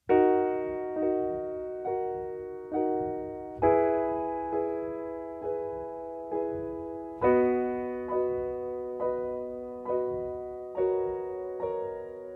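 Slow piano intro of a soundtrack song: a soft chord struck about once a second, each ringing and fading, the harmony moving to a new chord every four strikes.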